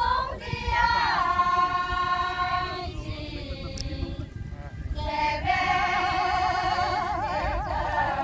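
Women singing a song together in long held notes, the later notes wavering with vibrato, with a short break about three seconds in.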